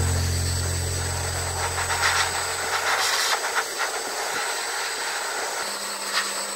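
A low held music note dies away over about three seconds, leaving the steady airy hiss of a pet grooming blower dryer with soft rustles.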